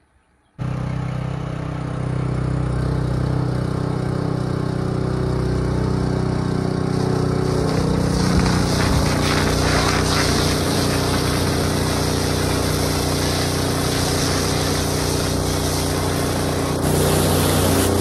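Small engine-driven pressure washer running steadily, its water jet hissing against a tractor's body and tyres. The sound starts suddenly about half a second in, and the spray hiss gets louder near the end.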